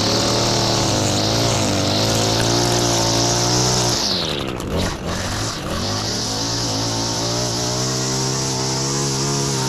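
Two-stroke gas string trimmer (weed eater) running at high throttle. About four seconds in, the engine speed drops sharply for a moment, then climbs back up.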